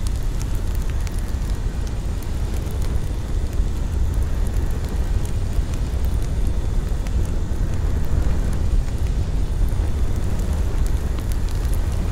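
Steady low rumbling noise with faint scattered ticks above it.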